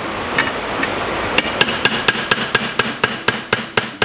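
Hammer tapping steel in a fast, even run, about four light strikes a second with a metallic ring, starting about a second and a half in after a few softer taps: setting the rivets of an MP5 receiver's shell deflector.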